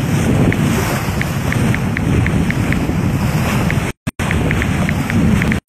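Wind buffeting the microphone over water rushing past a moving sailboat's bow, with a faint high tick repeating a few times a second. The sound cuts out briefly twice, about four seconds in and near the end.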